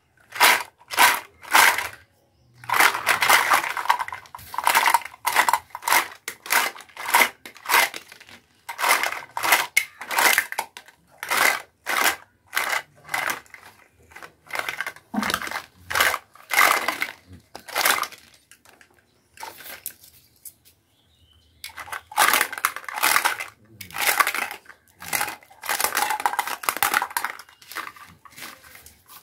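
Hard plastic toy fruit and vegetable pieces clattering and knocking together as they are taken out of a plastic basket and dropped onto a mat: a long run of short rattles, with a brief pause about two-thirds of the way through.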